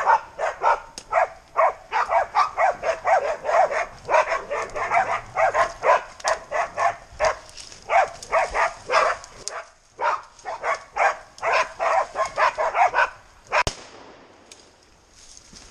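Pig-hunting dog bailing, barking rapidly and without a break at about four barks a second: the bay bark of a dog holding a pig. The barking stops near the end, at a single sharp knock.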